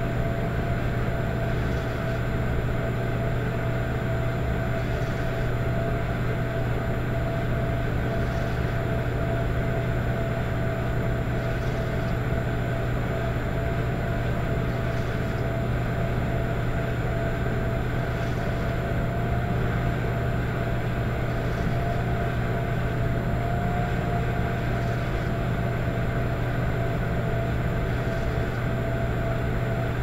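Electric fireplace running with a steady low hum and drone. A soft swish comes back about every three seconds, giving the rhythmic, soft snoring-like noise this fireplace makes.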